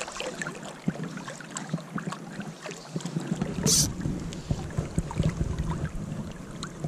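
River water lapping and flowing around a wading angler, with small ticks and rustles of fly line being gathered by hand. There is a brief hiss just past halfway, and wind rumble on the microphone comes in from about halfway on.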